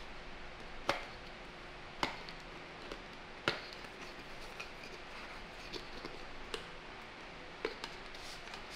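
Small paperboard product box being opened and handled by hand: scattered sharp taps and clicks of card flaps and fingers on the box.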